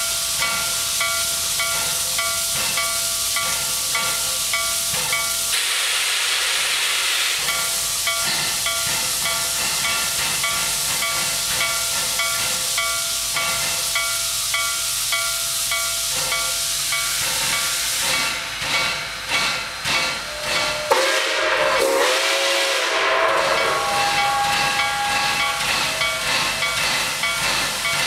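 Nickel Plate Road 765, a 2-8-4 Berkshire steam locomotive, approaching slowly with a steady hiss of steam and a repeating ringing. A run of exhaust beats comes about two-thirds of the way through, followed by its steam whistle sounding.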